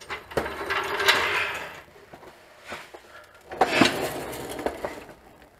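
Clattering and scraping of metal equipment being handled and moved, in two spells, the second starting about three and a half seconds in.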